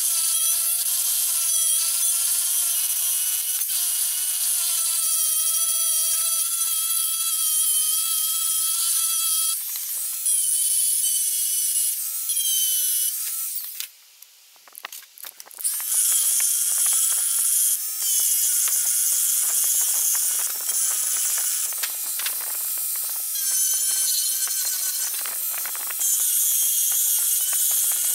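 High-speed handheld rotary tool with a sanding drum grinding the steel tang of an old hatchet head: a high whine whose pitch wavers as the drum bites into the metal. It cuts out briefly about halfway through.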